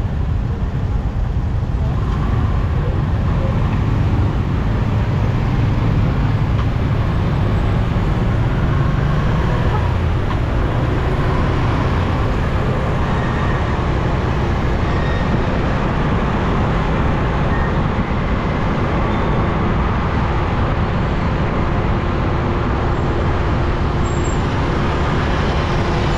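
City street traffic heard from a riding motor scooter: a steady mix of motorbike and car engines with road noise.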